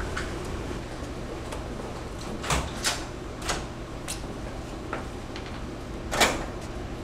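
Footsteps on a hard floor and an office door being handled: a handful of sharp clicks and knocks over steady room hum, the loudest about six seconds in.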